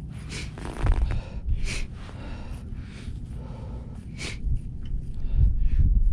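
Wind buffeting the microphone in low rumbling gusts, loudest about a second in and again near the end, with three short sniffs spread through.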